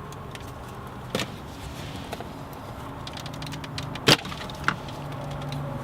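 Plastic centre-console trim of a B9 Audi A4 being pried up with a plastic trim tool: a few sharp clicks and snaps as the retaining clips let go, the loudest about four seconds in.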